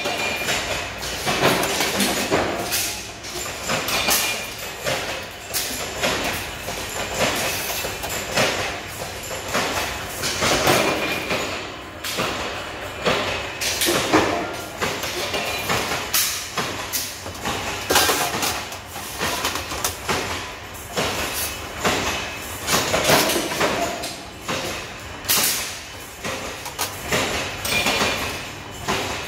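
Sheet-metal workshop noise: irregular loud metallic bangs and clatter, about one every second or two, over steady machinery noise.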